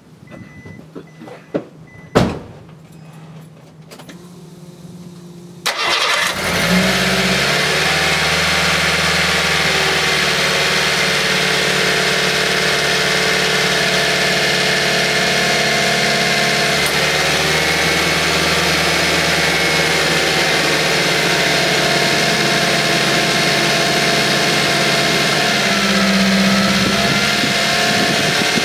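Subaru Sambar TV1's EN07 658 cc inline four-cylinder engine, with stock intake and exhaust, cold-starting from fully cold. After a sharp click and a few quiet seconds, it catches about six seconds in, flares briefly, then settles into a steady idle, with a short rise in engine speed near the end.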